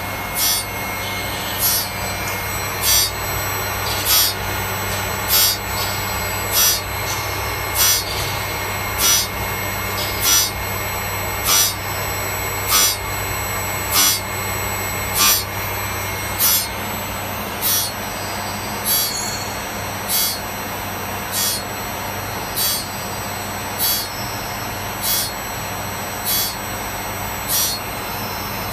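CNC saw-blade sharpening machine's CBN grinding wheel grinding the teeth of an HSS circular saw blade one by one. A short rasping grind comes about every 1.2 seconds, one per tooth, over a steady machine hum. The strokes grow weaker in the second half.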